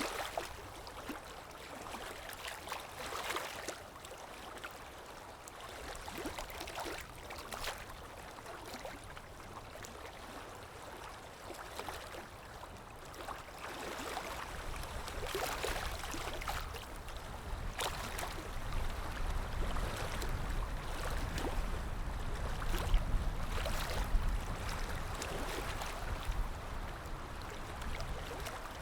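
Sea waves washing in, a continuous wash of water that swells every few seconds, with a low rumble building from about halfway through.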